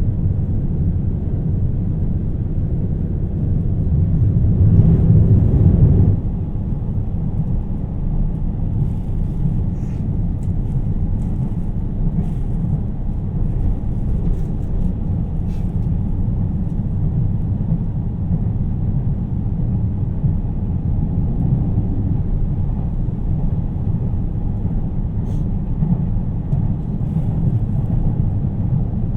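Steady low rumble of a 2700 series diesel limited express train running, heard from inside the passenger cabin. The rumble swells about four seconds in and drops back abruptly a couple of seconds later.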